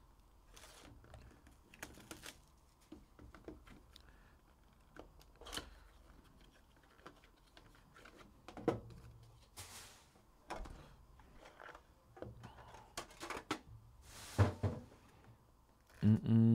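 Shrink-wrap being peeled and torn off a sealed trading-card box, with scattered crinkles, clicks and taps as the box is handled and opened.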